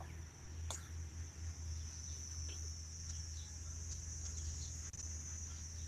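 Insects chirring steadily at a high pitch over a low hum, with a few faint short chirps.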